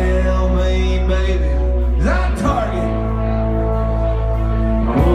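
Live country-rock band playing: acoustic and electric guitars over a heavy, steady bass. A sliding note sweeps up about two seconds in and again near the end.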